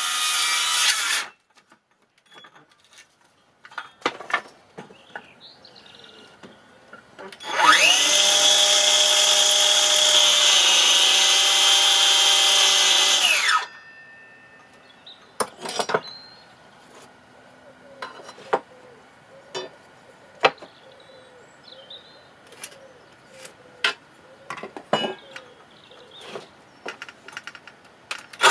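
Electric power tool running, stopping about a second in; then scattered knocks and clicks; then the tool's motor spins up, runs for about six seconds and winds down; more knocks and clicks follow, and the tool starts again at the very end.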